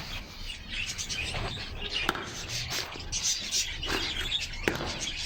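Caged birds chirping and twittering, with a few sharp clicks and rustles among them.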